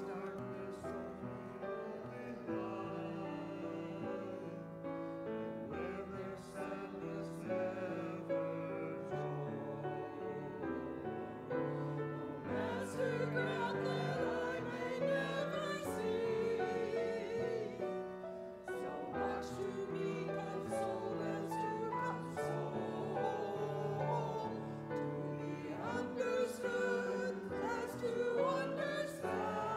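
Small mixed church choir singing a choral anthem with grand piano accompaniment, growing louder about twelve seconds in.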